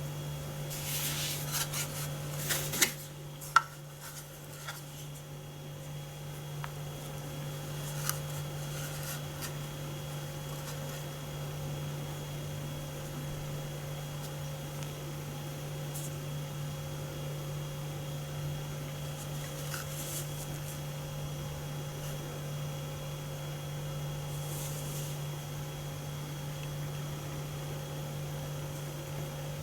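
A steady low electrical hum runs throughout. A few sharp clicks and knocks come in the first few seconds, like something being handled, with a few faint taps later on.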